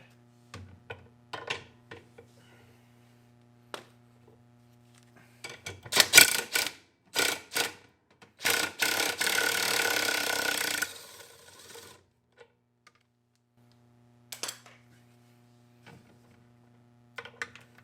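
Socket ratchet loosening a tight bolt: a few loud separate strokes, then about two seconds of rapid continuous ratcheting. Scattered lighter clicks and taps of tools on metal come before and after.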